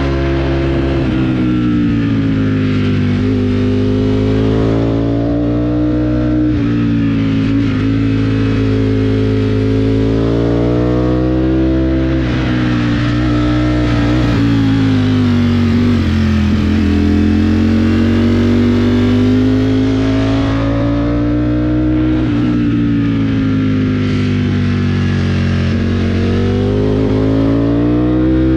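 Ducati motorcycle engine running under way at moderate revs in a low gear, its pitch rising and falling gently several times as the throttle is rolled on and eased off through the bends.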